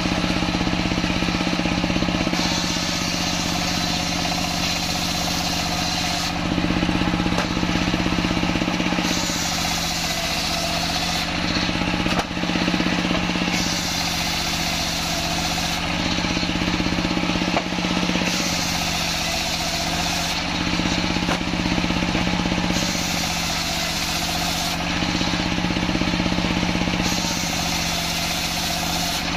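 Large circular saw bench driven by a stationary diesel engine, running steadily while its blade rips a kantil-wood log lengthwise, the engine's hum held under a constant cutting hiss that brightens and dulls every few seconds as the log is pushed through.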